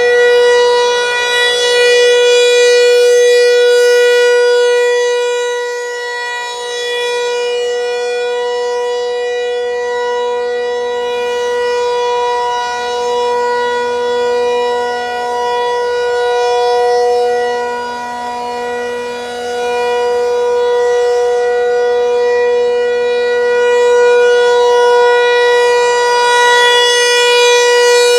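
Federal Signal 508 outdoor warning siren sounding a steady tone during its monthly test. Its loudness swells and fades every ten seconds or so as the siren head rotates.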